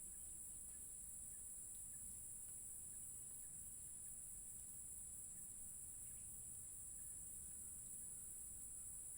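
Faint, steady high-pitched drone of insects, with a low rumble of outdoor background underneath.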